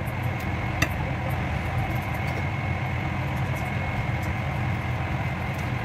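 Steady low machine hum with a faint high steady tone, and one light clink about a second in.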